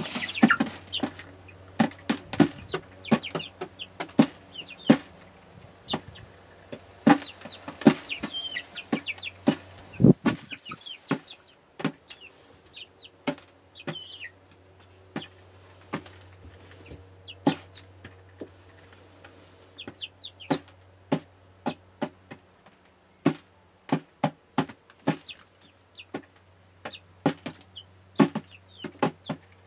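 Young hens pecking feed off the lids of upturned plastic buckets: a fast, irregular tapping of beaks on plastic, like drumming, with soft clucks now and then.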